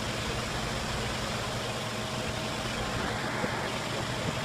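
A machine running steadily: a constant low hum under an even noise, with no change in speed.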